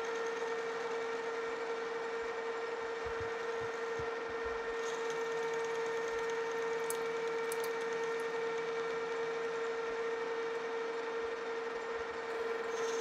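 Metal lathe running steadily while facing the end of a metal workpiece: an even mechanical hum with a steady whine.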